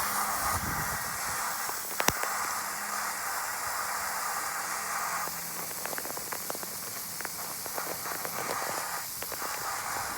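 Steady hiss of water with scattered light taps and drips.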